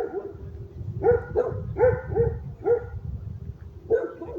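A dog barking in short, high yips, about seven of them spread irregularly over a few seconds.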